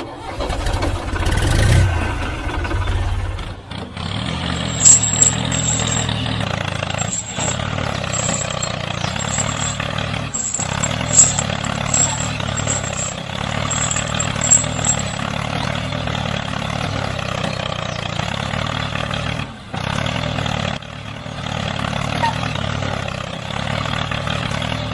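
A small engine or motor running steadily, with a few sharp clicks in between.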